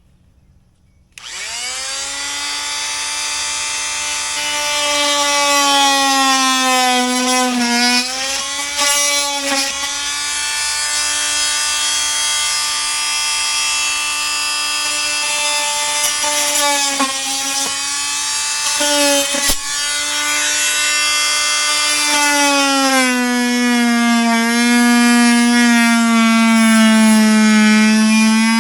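Fein MultiMaster oscillating multi-tool switched on about a second in, buzzing steadily as its blade cuts out rotten wood from a door jamb. The pitch sags each time the blade bites into the wood, and it runs lower and louder in the last few seconds.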